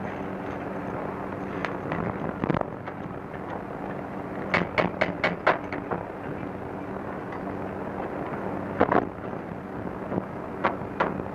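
Sharp knocks of hammering on steel come in quick runs: about six in a row around the middle, a pair a few seconds later and a few more near the end, over a steady low hum.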